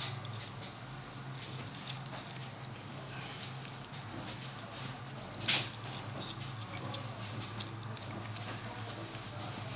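Hedgehog eating: a run of quick, small wet smacking and chewing clicks, with two louder noisy bursts about two seconds and five and a half seconds in.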